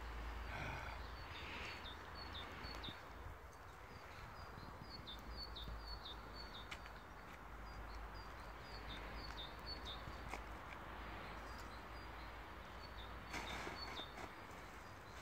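Outdoor ambience: wind rumbling on the microphone, with a small bird's faint high chirps repeating about twice a second, and a few crunching steps in snow near the end.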